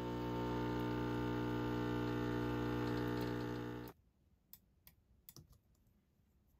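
Automatic espresso machine's pump running with a steady hum while it pours espresso over ice, cutting off abruptly about four seconds in. Then a few faint clicks of a computer keyboard and mouse.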